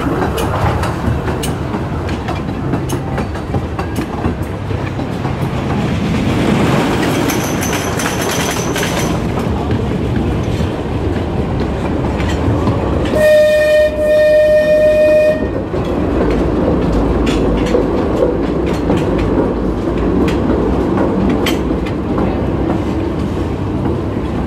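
Amusement-park passenger train running, heard from its open cars: a steady rumble with the wheels clicking over the rail joints. About halfway through, the train sounds one steady horn blast lasting about two seconds.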